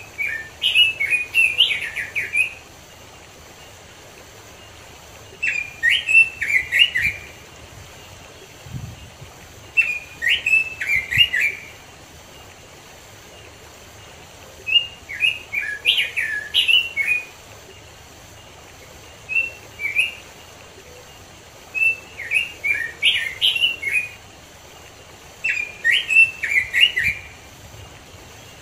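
Red-billed leiothrix (Pekin robin) singing: about seven short, quick warbled phrases of rising and falling whistled notes, each phrase one to two seconds long, repeated every four to five seconds.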